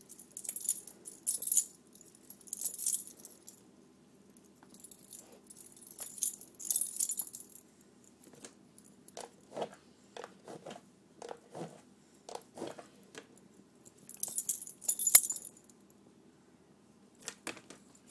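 A Great Dane's metal chain collar and tags jingling in several short bursts as the dog moves its head, the loudest about 15 seconds in, with a run of short sniffs in between.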